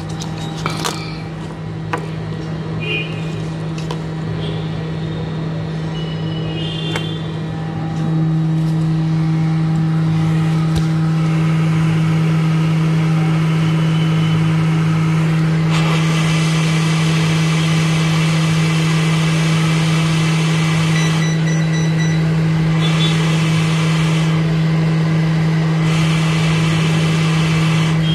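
Hot air rework station running and heating up: a steady blower hum that gets louder about eight seconds in, with the rush of air growing stronger from about sixteen seconds in.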